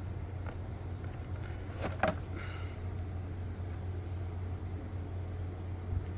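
Steady low hum with a few faint clicks of handling about two seconds in.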